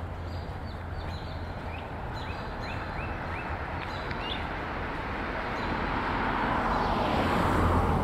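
A car passes on the street, its noise swelling to a peak near the end. Short high chirps repeat about three times a second in the first half, over a steady low hum.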